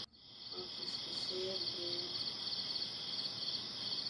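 Crickets chirping: a steady high trill pulsing in quick, regular groups, cut off for an instant at the start.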